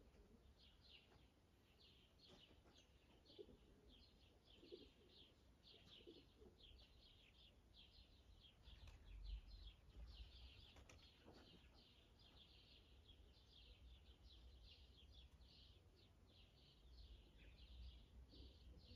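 Faint small birds chirping in a continuous run of short, high, quick chirps.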